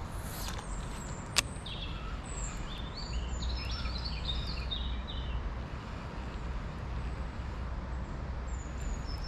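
A small songbird singing a run of short high notes over a steady low rumble, with a single sharp click about a second and a half in.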